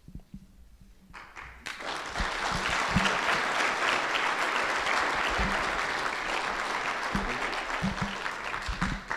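A congregation applauding: the clapping starts about a second in, swells quickly and keeps up steadily, easing off near the end.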